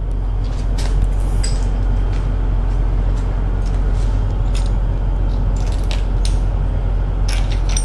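A steady low mechanical rumble, with scattered light metallic clinks as the camshaft bearing caps are lifted off and handled.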